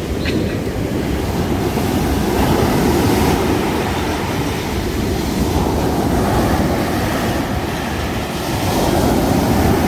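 Rough sea surf breaking and washing up the beach: a loud, continuous rushing rumble that swells about three seconds in and again near the end.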